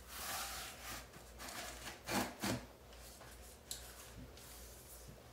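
A TrafficMaster Carrara Marble peel-and-stick vinyl floor tile being slid and worked into place against the neighbouring tiles: soft scraping and rubbing, with a couple of louder scuffs about two seconds in and a light click a little past the middle.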